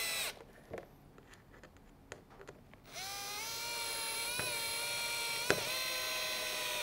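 Cordless drill at its slowest speed driving self-tapping screws to fix a fin blade into a foot pocket. A short run stops right at the start, then after a few seconds of light clicks the motor whines again, rising a little in pitch and then holding steady, with two sharp clicks along the way.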